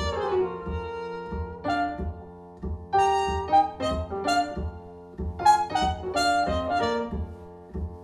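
Jazz with a horn lead over double bass, played through Q Acoustics 3020 bookshelf speakers with an Indiana Line Basso 830 subwoofer and heard through the room.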